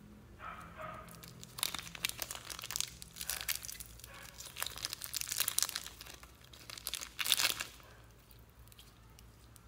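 Thin clear plastic wrapping crinkling and crackling in the hands as it is handled and pulled off a small green toy, in uneven bursts that peak near the end and then die away.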